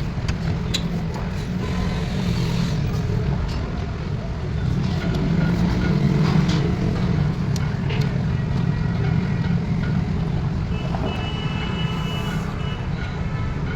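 Steady low rumble of a running vehicle engine, with scattered short clicks and knocks. A brief high-pitched beep comes about eleven seconds in.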